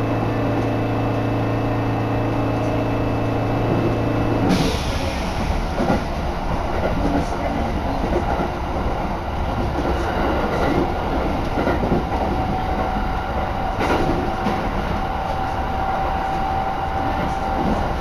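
A local train running, heard from inside the carriage. It starts with a steady hum, and from about four and a half seconds in the louder rumble of wheels on the rails takes over, with scattered clacks at rail joints and a faint steady whine near the end.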